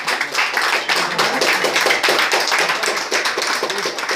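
A group of people clapping: a dense, steady run of hand claps.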